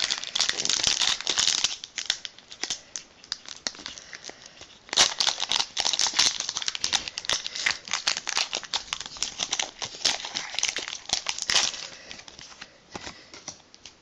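Pokémon booster pack's foil wrapper crinkling as it is handled and torn open, in a burst over the first two seconds and again from about five to twelve seconds in.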